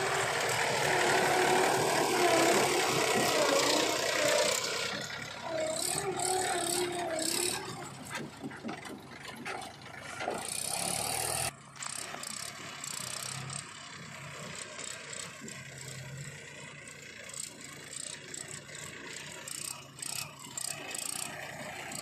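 Mahindra 295 DI diesel tractor engine working as it pulls a loaded trolley away, loud and close at first with its pitch rising and falling, then dropping suddenly about halfway through to a fainter, distant running.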